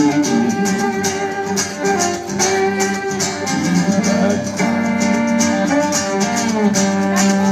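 Live acoustic guitar strumming a steady rhythm under a bowed fiddle playing long, sliding held notes: an instrumental passage of a folk-rock song, amplified through a PA.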